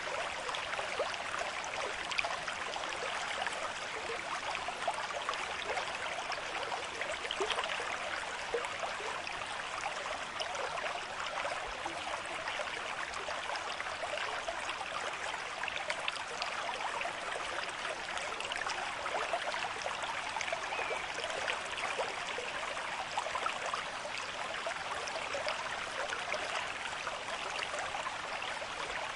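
A stream of moderate flow running over stones, a steady rushing and babbling with many small splashes.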